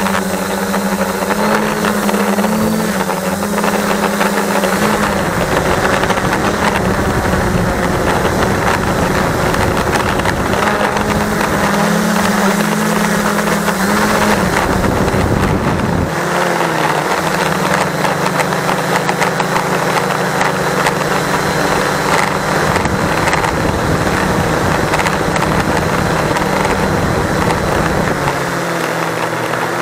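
Multirotor drone's motors and propellers humming steadily, picked up by the onboard camera's microphone. The pitch shifts in small steps as the motors adjust, with wind buffeting the microphone for several seconds in the middle and again near the end.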